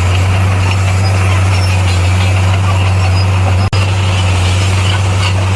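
Heavy construction machine's diesel engine running steadily with a deep, even drone; the sound drops out for an instant a little over halfway through.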